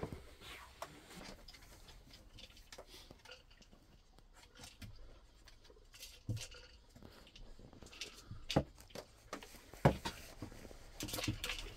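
A dog nosing and pushing a plastic treat-dispensing puzzle toy across a hard floor: scattered light clicks and knocks, a second or two apart, in the second half.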